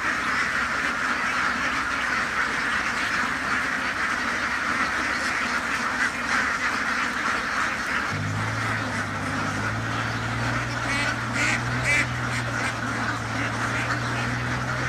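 A large flock of domestic laying ducks quacking together in a dense, continuous chorus. About eight seconds in, a steady low hum starts up underneath and keeps going.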